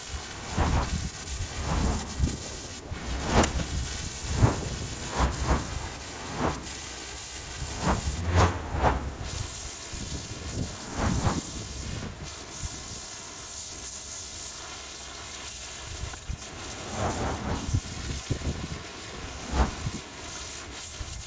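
Pressure washer jet hissing as it blasts thick moss off a garage roof, with irregular louder surges of spray and splatter every second or so.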